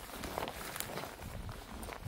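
Footsteps walking, several steps in quick succession over a background hiss.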